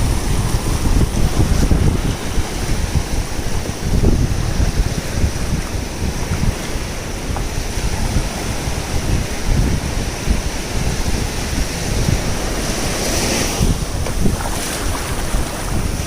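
Wind buffeting the microphone in strong gusts over the wash of sea waves.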